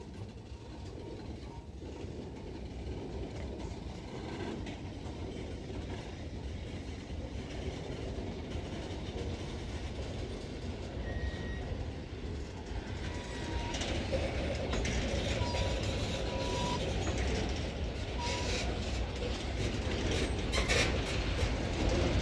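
Empty freight boxcars rolling past on the rails: a steady rumble of wheels and couplings that grows louder partway through, with a few brief squeals and sharper clacks near the end.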